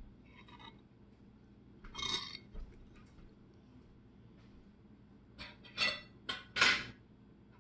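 A metal fork clinking and scraping against a ceramic plate as a piece of flan is cut off and lifted. There are a few soft touches in the first half and a quick cluster of sharper clinks in the last two seconds, the loudest just before the end.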